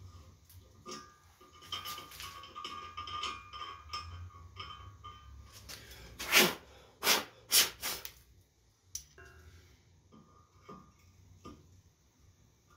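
Hand tap turned in a T-handle tap wrench, cutting threads into a steel plate with quiet scraping and clicking. About six seconds in come four short, loud puffs of air, the first the longest.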